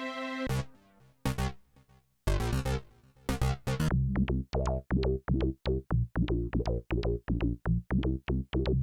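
Synthesized electronic music played from a DAW. A held synth chord cuts off about half a second in, a few isolated hits follow, then a fast, even run of short synth notes over a low bass, about four to five a second.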